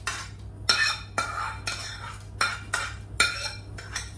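Spoon scraping sautéed onions out of a cooking pan into a mixer-grinder jar, in short repeated scraping strokes with metallic clinks, about two or three a second.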